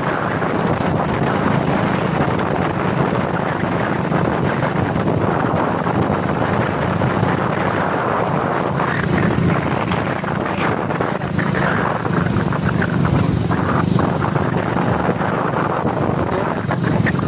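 Motorcycle engine running steadily at speed, with wind rushing over the microphone.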